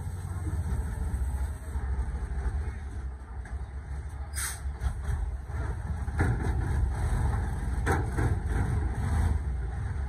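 Tandem-axle dump truck's diesel engine running as the truck drives slowly over a rough, rutted dirt track. A few brief sharp noises stand out, about four seconds in and again near eight seconds.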